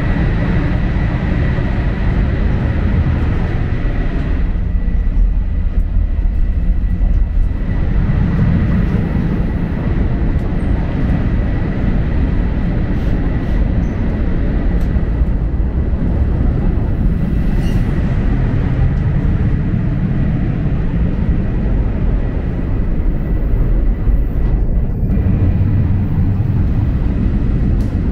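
Steady, loud low rumble of a 500 series Shinkansen bullet train running, heard from inside the car, with a thin high whine in the first half.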